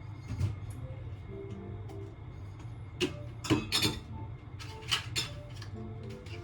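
Background music with short plucked-sounding notes, crossed by a handful of sharp knocks and clicks: a few about three to four seconds in and two more around five seconds.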